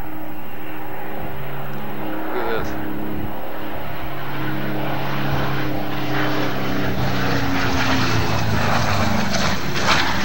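Light propeller plane's piston engine droning steadily as it flies low, a little louder in the second half, with a brief knock near the end.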